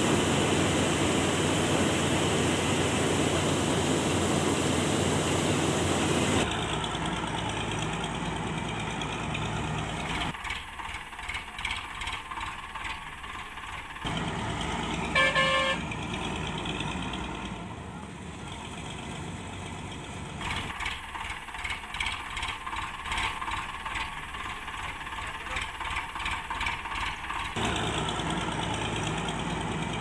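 Steady whirring of a homemade toy combine harvester's small electric threshing mechanism, which stops suddenly about six seconds in. Then a small toy tractor's electric motor and plastic gears run with a fast, even ticking, and a short horn-like toot sounds a little past halfway.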